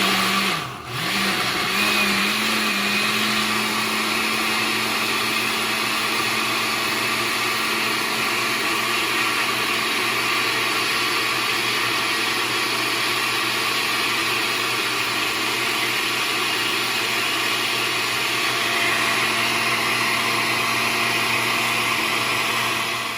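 Countertop blender running at full speed, pureeing boiled chiles, cilantro and broth into a sauce. The motor cuts out briefly about a second in, then runs steadily.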